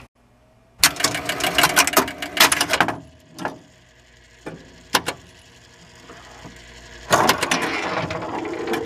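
1973 Williams Travel Time electromechanical pinball machine starting up after its start button is pressed. Its relays and stepper units clatter in a rapid run of clicks for about two seconds, a few single clicks follow, and a second clattering run comes near the end.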